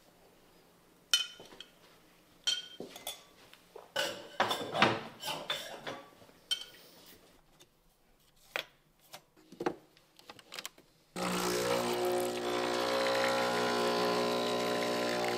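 Clinks and knocks of cups and espresso-machine parts being handled, then about eleven seconds in an espresso machine starts running with a loud, steady hum.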